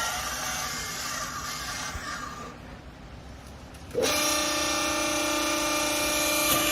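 Hydraulic baler press's pump and motor running with a steady whine, easing off after about two and a half seconds, then coming back in abruptly and louder about four seconds in as the press works under load.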